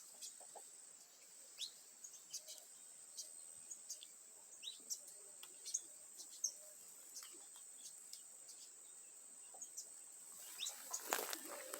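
Faint, scattered short bird chirps and down-slurred calls over a steady high thin hum. Louder rustling starts near the end.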